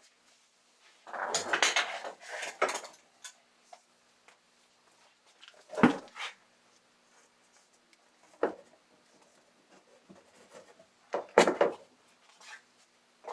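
Wooden fascia strip being handled and fastened to a layout edge with a pneumatic brad nailer: a stretch of clattering and rubbing about a second in, a sharp single shot near the middle, a smaller click, and another short burst of knocking near the end.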